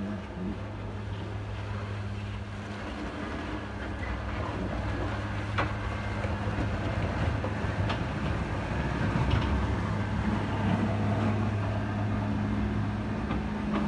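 Heavy diesel engine of an ice-clearing machine running steadily, growing slightly louder as it works, with a few sharp knocks midway.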